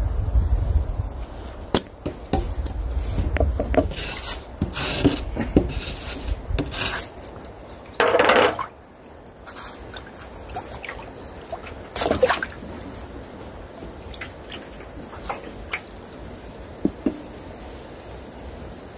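Water dripping and splashing off a wet landing net while a caught crucian carp is handled and unhooked, with a string of short wet rustles and splashes. A louder splash comes about eight seconds in and another about twelve seconds in, and small tackle clicks follow in the later part.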